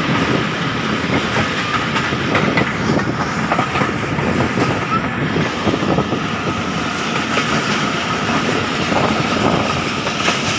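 Passenger train running at speed, heard from aboard: a steady rumble of wheels on the track with a continuous run of rail clicks and clatter.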